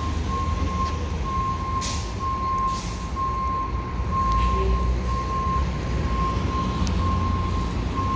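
A steady electronic beep repeating about one and a half times a second, typical of a bus or truck reversing alarm, over the low rumble of idling engines. Two short hisses come about two seconds in.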